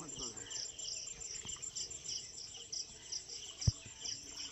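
Insects chirping in a regular pulse, about three a second, over a steady high whine. There is a single sharp low thump about three and a half seconds in.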